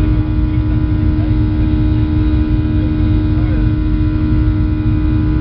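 Boeing 737-800's CFM56-7B turbofan engines heard inside the cabin in low-altitude flight: a steady, loud drone with a strong hum and a low rumble underneath.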